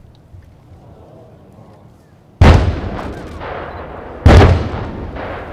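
Two heavy explosions about two seconds apart, each starting suddenly and dying away in a long rolling echo: the blasts at the target area announced as laser JDAM bomb impacts.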